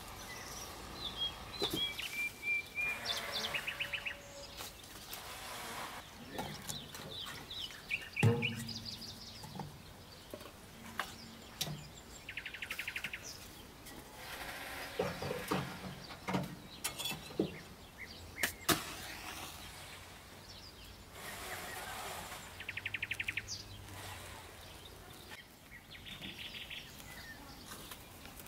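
Birds chirping and trilling outdoors, with a few sharp knocks and clatters of firewood being handled and fed into a sheet-metal wood stove; one metallic clang rings on briefly.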